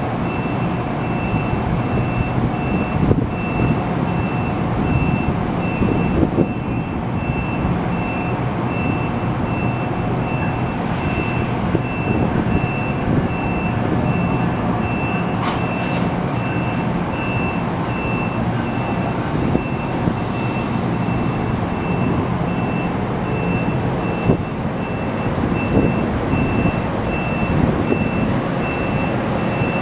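NJ Transit multilevel push-pull train with an ALP-45A locomotive running at the platform: a steady low hum and rumble, with a high beep repeating evenly throughout and a few short clunks.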